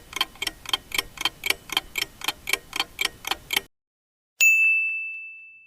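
Clock-tick countdown sound effect, about four ticks a second, stopping after nearly four seconds. A single bell ding follows, its high ringing tone fading away: the signal that the answer time is up.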